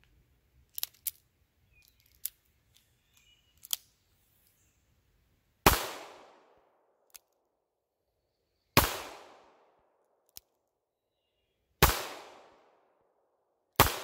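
Taurus 856 .38 Special revolver firing four single shots about three seconds apart, each a sharp crack with a short echoing tail. A few faint clicks come before the first shot.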